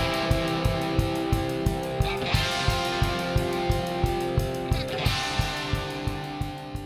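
Background music with a steady beat and held chords, fading out near the end.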